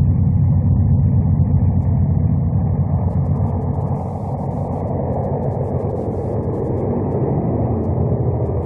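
Diesel locomotive engine running under load, a steady low rumble.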